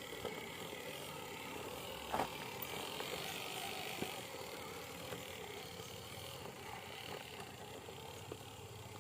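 Radio-controlled scale truck's electric motor and drivetrain whirring as it works through mud, with a sharp knock a couple of seconds in and a lighter one near the middle.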